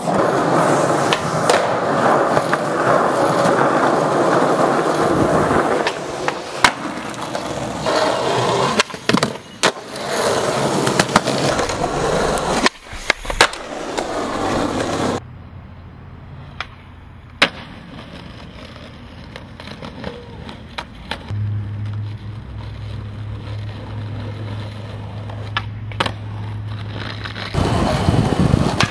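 Skateboard wheels rolling over rough pavement, with sharp clacks of the tail popping and the board landing. A quieter stretch in the middle holds a few scattered clacks and a steady low hum, and loud rolling returns near the end.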